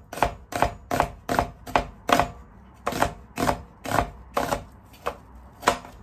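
Kitchen knife slicing half a red onion on a plastic cutting board: a run of sharp knocks of the blade on the board, about two to three a second, with a brief pause near the middle.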